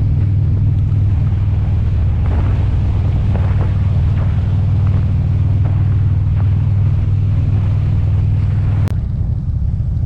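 Motorcycle engine running at a steady speed, a constant low drone, with wind noise on the microphone from riding. A sharp click about nine seconds in.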